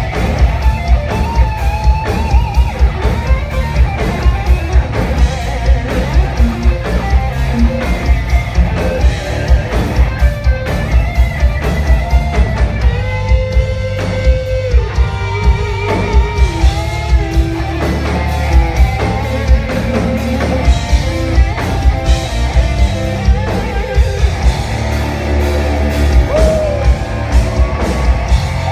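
Heavy metal band playing live through a club PA: electric guitars, bass and a steady, busy drum beat in an instrumental passage.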